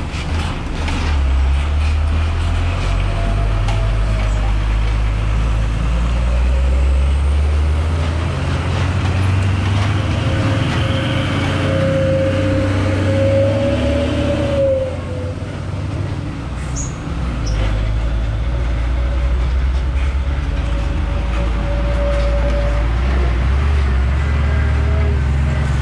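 Steady low rumble of a large running vehicle. A faint whining tone rises and falls over it near the middle, and the sound dips briefly after that.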